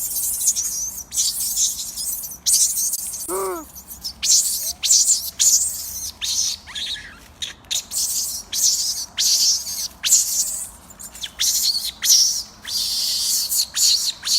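Birds chirping in rapid, high-pitched calls that repeat over and over. About three seconds in there is one short, lower call that rises and falls.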